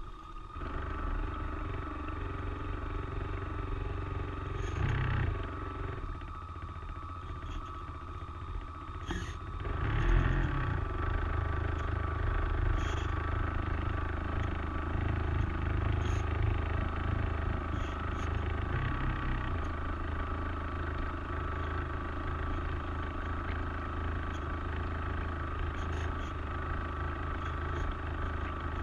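Electric drive motor and propeller of a Springer tug RC model boat humming steadily as it cruises, heard from on deck, with a louder surge about ten seconds in.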